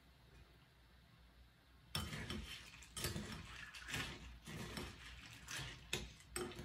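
A spoon clinking and scraping in a bowl of cereal and milk: a run of irregular clinks and scrapes that starts about two seconds in.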